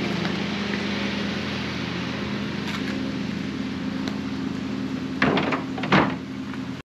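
A steady low mechanical hum, with two short knocks or clatters about five and six seconds in.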